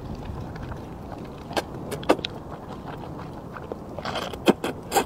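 Thick potato noodles being slurped and chewed, with sharp wet mouth clicks and a longer slurp about four seconds in, over a steady low rumble.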